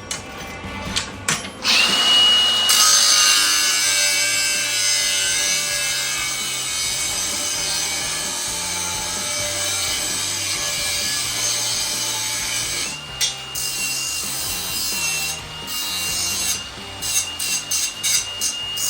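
Power tool cutting through a steel bolt: a steady high whine with a hiss that starts after a couple of seconds, drops out briefly about two-thirds through and starts again. Short clicks come before it and near the end.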